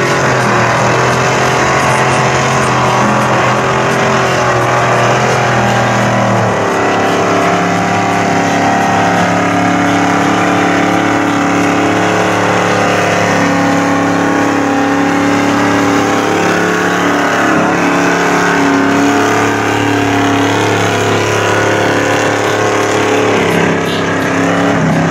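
Mud buggy's engine running steadily under load as the big tires churn through deep mud, its pitch dropping about six seconds in and rising again near the end.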